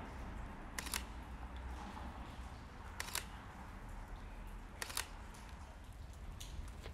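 A camera shutter firing three times, about two seconds apart, each a quick double click, over a low steady rumble.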